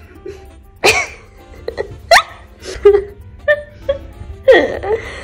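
A woman laughing in short, loud bursts with rising pitch, about six in all, over quieter background music.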